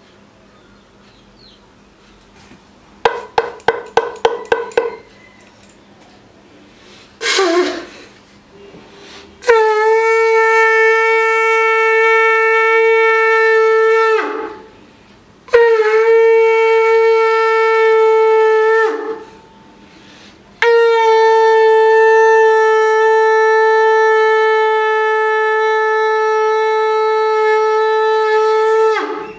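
Conch shell (shankha) blown in three long, steady blasts, each sagging in pitch as the breath runs out; the last is the longest. They are preceded by a quick run of about eight short toots and a brief falling note.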